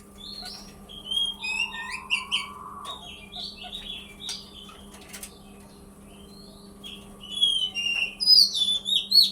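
Male button quail (king quail) calling: a run of short chirps and whistled notes in irregular clusters, growing louder and quicker in the last two seconds. A faint steady hum lies underneath.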